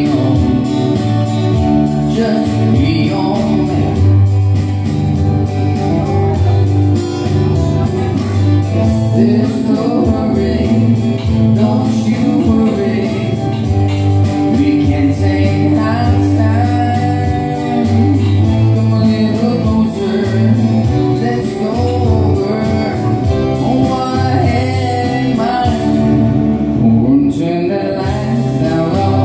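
A small live band playing a song through PA speakers: a singer's voice carries the melody over amplified instrumental backing with a bass line and a steady beat.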